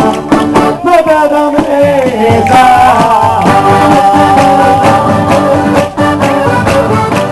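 Live southern Italian folk music: a singer's voice gliding and wavering over sustained instrument tones, with a tammorra frame drum.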